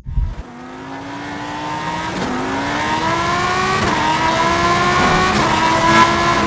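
Car engine accelerating, its pitch climbing and growing steadily louder, dipping briefly about three times as it shifts up through the gears.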